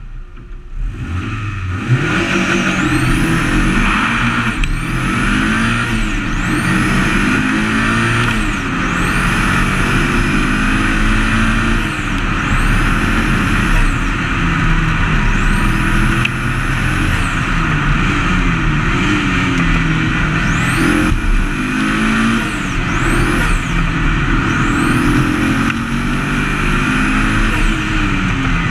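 Racing engine heard onboard during a hill-climb run: it pulls away from the start line, then revs up again and again, climbing in pitch and dropping at each gear change every couple of seconds, over wind and road rush.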